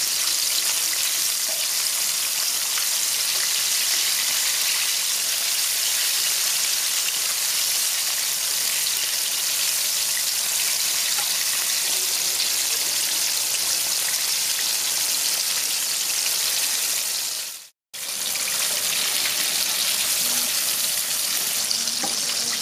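Battered chicken legs deep-frying in hot oil: a steady, loud sizzle and crackle of bubbling oil, broken once by a split-second gap near the end.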